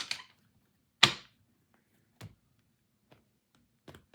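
Tarot cards being handled: the end of a shuffle, then one sharp tap of the deck about a second in, a softer tap a little after two seconds, and a few faint card clicks near the end.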